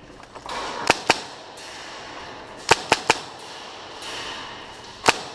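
Airsoft guns firing single sharp shots: a pair about a second in, three quick ones near the middle, and one more near the end.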